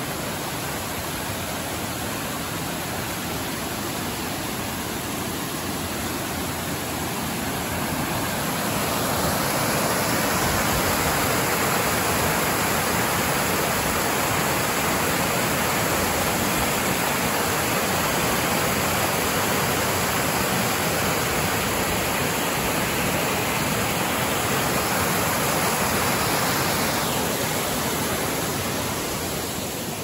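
Small waterfall with water cascading in several streams over a broad, stepped rock face, a steady rushing noise. It grows louder about a third of the way in and eases off near the end.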